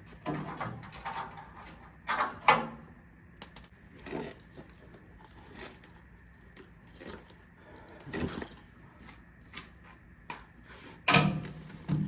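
Hand tools working rusted bed bolts on a truck: scattered metallic clinks and knocks at uneven intervals, a few louder knocks among them.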